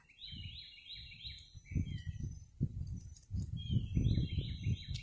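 A songbird singing two runs of quick, repeated falling chirps, with a low uneven rumble underneath.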